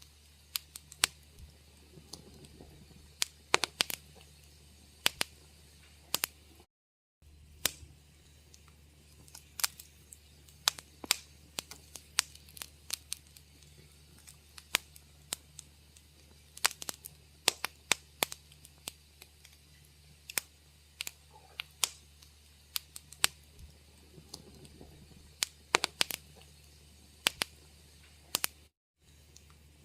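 Wood fire crackling in a fireplace: irregular sharp pops and snaps, several a second, over a faint steady low hum. The sound cuts out completely for a moment twice, about a quarter of the way in and near the end.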